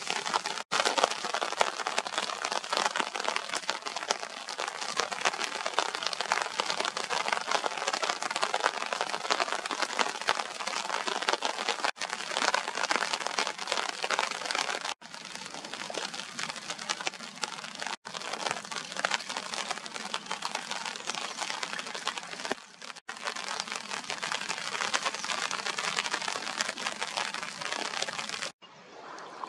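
Steady rain, a dense crackling patter of drops striking the water, broken by a few brief gaps.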